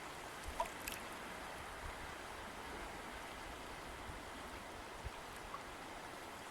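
River water flowing with a steady rush, with a few faint short clicks of water over it.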